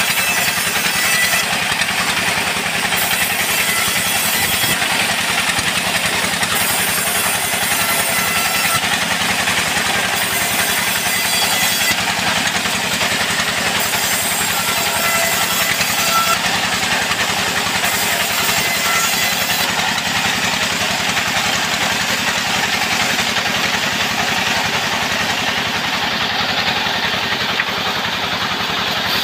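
Sawmill band saw running steadily while sawing mahogany: a constant mechanical drone with a fast low pulse under the hiss of the blade.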